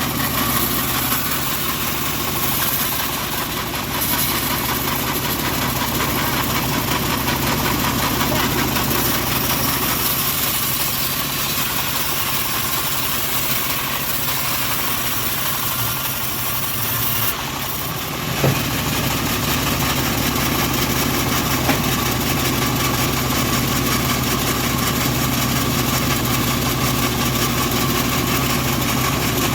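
Engine of a homemade bandsaw sawmill running steadily. A little past halfway the sound drops briefly, then a single sharp knock is heard, and a lighter click follows a few seconds later.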